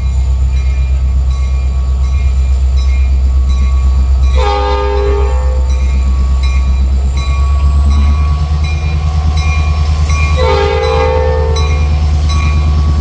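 Diesel locomotive passing at close range with a steady low engine drone and a regular click about twice a second, its air horn sounding two separate blasts of about a second each, the second some six seconds after the first.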